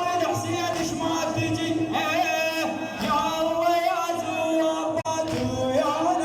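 A male radood chanting a Shia Husseini lament (latmiya) with wavering, ornamented melodic lines, over a steady held tone and a regular low beat.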